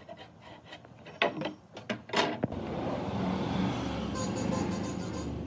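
A few knocks, then a steady machine-like running sound with a low hum that starts abruptly about two and a half seconds in.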